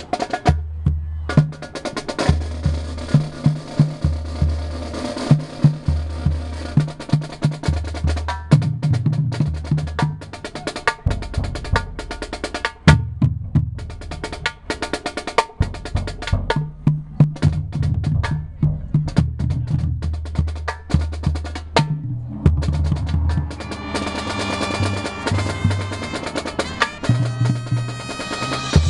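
Marching band music heavy with percussion: rapid drum strikes and snare rolls over repeated sustained low notes, with a concert bass drum struck in the front ensemble. Ringing higher metallic tones join in the last few seconds.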